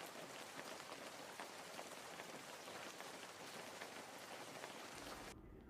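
Steady rain falling, a faint even patter of many drops, cutting off suddenly shortly before the end.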